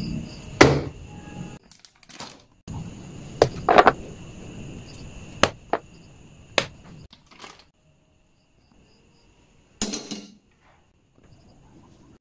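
Several sharp knocks and clunks of glass spice jars and other kitchen items being picked up and set down on a plastic cutting board. The loudest come in the first four seconds. A faint, steady high-pitched tone sits underneath for most of the first half.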